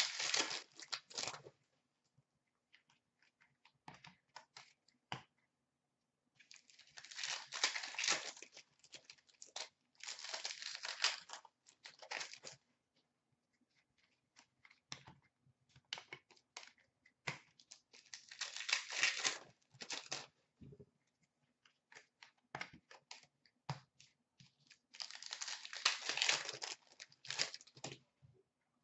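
Hockey trading card packs being torn open and the cards handled: about four bursts of wrapper tearing and crinkling, each a couple of seconds long, with small clicks and slides of cards between them.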